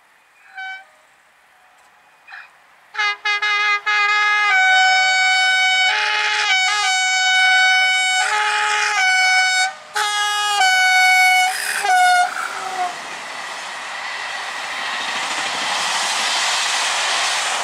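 BB 22355 electric locomotive sounding its horn: three short toots, then a long run of blasts switching back and forth between two pitches. The horn gives way to the growing noise of the locomotive and its passenger coaches running past, loudest near the end.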